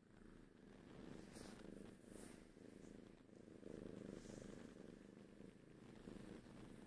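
Domestic cat purring contentedly while being scratched under the chin and rubbing against a sleeve: a faint, low purr that swells and fades about once a second.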